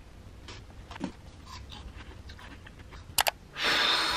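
Faint small taps and desk sounds, then two sharp clicks about three seconds in, followed by a loud breathy blow of air through puffed-out cheeks lasting about a second.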